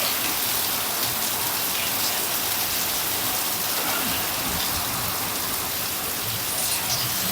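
Heavy rain falling steadily, a dense even hiss of rain on surfaces with occasional individual drops standing out.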